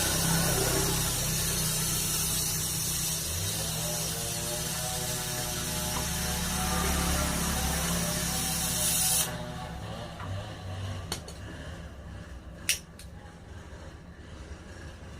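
Strong steady hiss of gas from refrigerator-repair equipment, cut off suddenly about nine seconds in, followed by two sharp clicks.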